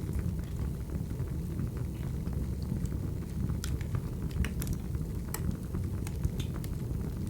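Wood fire burning: a steady low rumble of flames with scattered sharp crackles and pops.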